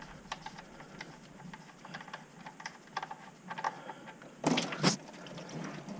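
Small irregular clicks of the oil pan drain plug being unscrewed by a gloved hand under a 5.7 L Hemi Ram 1500, with two short, louder bursts of noise about four and a half seconds in.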